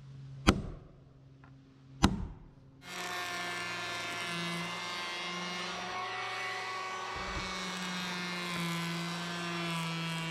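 Two sharp hammer blows on wooden roof boards, about half a second and two seconds in. Then a cordless electric hand planer starts just under three seconds in and runs with a steady high whine, shaving the high edges off rough chainsaw-milled roof boards.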